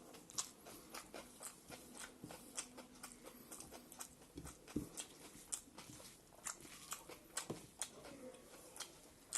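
Close-up mouth sounds of a person chewing a mouthful of rice with buffalo meat, greens and pickle: irregular wet clicks and smacks several times a second, with a few duller thuds.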